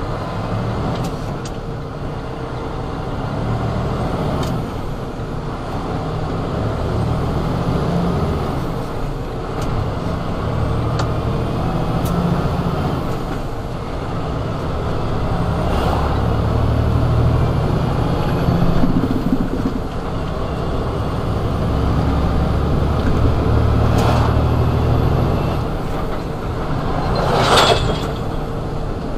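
Diesel engine of a semi truck pulling loaded double trailers, its low running note swelling and easing every few seconds with changing load. A brief sharp noise cuts through near the end.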